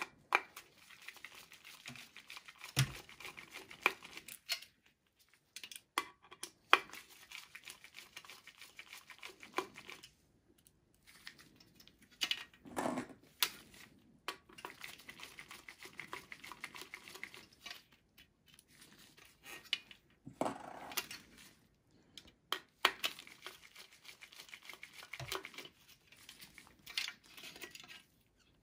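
Phillips screwdriver turning screws out of a steel hard-drive cage: several stretches of faint scraping, broken by sharp clicks and knocks of metal as the cage is handled.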